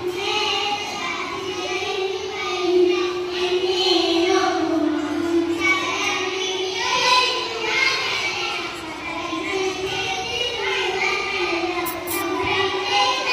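A child singing a melody solo, with long held, wavering notes.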